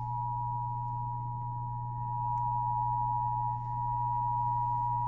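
Emergency Alert System attention signal: the two-tone alert (853 and 960 Hz sounded together) held steady without a break over a low, constant hum. It is the alarm that heralds an emergency broadcast, here a National Weather Service fire warning.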